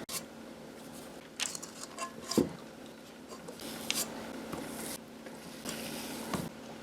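A cookie scoop and cookie dough being handled, making about half a dozen faint, scattered clicks and light knocks as the dough is portioned out.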